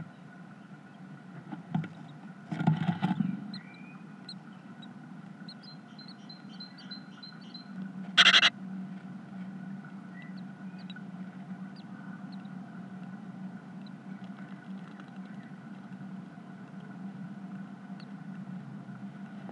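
Steady low hum inside a great tit nest box, with the adult great tit shuffling in the nest: a scuffle about three seconds in and a short, loud scrape about eight seconds in. Faint, high, short peeps of newly hatched chicks begging to be fed come between them.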